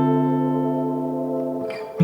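Background music: a sustained guitar chord fading slowly, with the next chord struck at the end.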